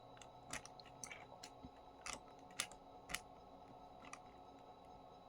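Faint, scattered light clicks and taps of small objects being handled, the two clearest just after the middle, over a faint steady hum.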